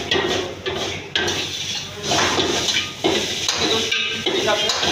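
Metal ladle clanking and scraping against a steel wok as stir-fried noodles are tossed and stirred, in irregular knocks a second or so apart. A steady low hum runs underneath.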